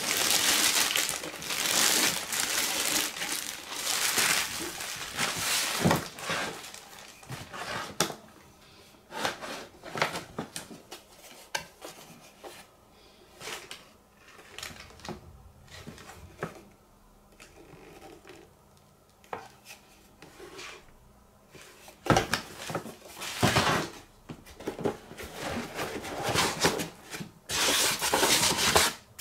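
Plastic bag crinkling as a portable power station is slid out of it, then scattered light knocks and taps of the hard plastic case against the cardboard box, and more rustling and scraping near the end as a foam packing insert is pulled out of the box.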